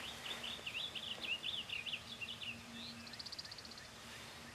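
A songbird singing: a quick warbled phrase of rising and falling notes, then a short buzzy trill about three seconds in.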